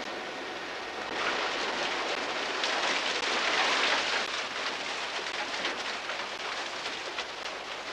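Rushing, splashing water churned by chinook salmon crowding and thrashing in a hatchery channel, a dense hiss with scattered splashes. It swells about a second in, is loudest a few seconds in, then eases off.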